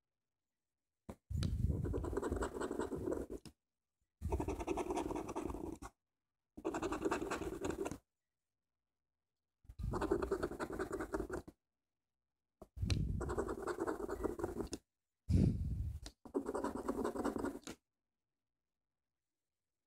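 A coin scratching the coating off a scratch-off lottery ticket, in about seven strokes of a second or two each with silence between.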